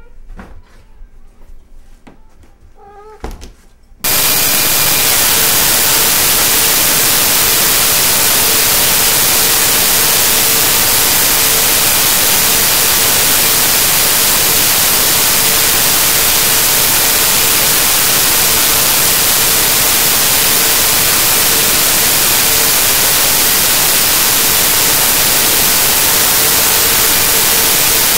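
A cat meows a few times, then about four seconds in a loud, steady hiss of static cuts in abruptly and holds unchanged: digital noise from a corrupted recording.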